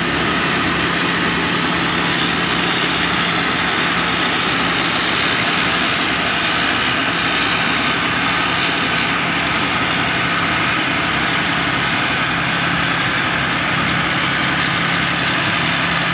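Kaset Pattana 'Ngern Mee' rice combine harvester, its Hino diesel engine and threshing gear running steadily under load as it harvests lodged rice lying in water: a continuous dense mechanical noise over a steady low hum.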